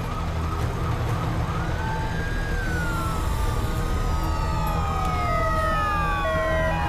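Several sirens wailing at once, their overlapping tones gliding up and down and mostly sliding downward, with a two-tone siren alternating between two notes starting near the end, over a steady low rumble.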